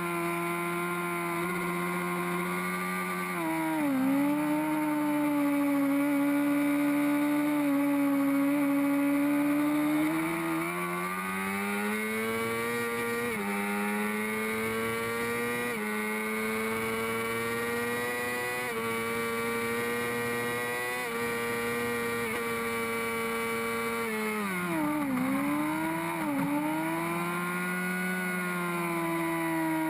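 Honda CBR600RR's inline-four engine running hard at high revs under the rider. The revs fall about four seconds in, climb in steps from about ten seconds on, then dip sharply twice around twenty-five seconds in and pick up again: braking and gear changes through the corners.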